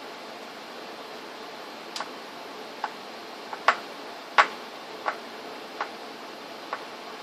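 A series of about seven light, sharp clicks and taps of small hard objects, irregularly spaced and starting about two seconds in, over a steady hiss.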